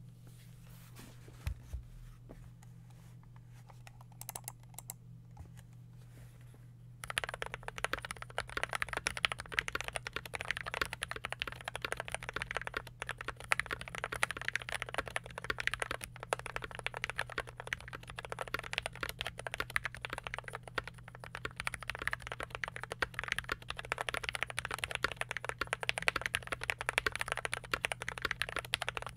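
Fast, continuous typing on a TY87 (PCL87) tenkeyless mechanical keyboard with lubed, filmed Gateron Pro Milky Yellow linear switches in an aluminium plate. The typing starts about seven seconds in, after a few faint knocks.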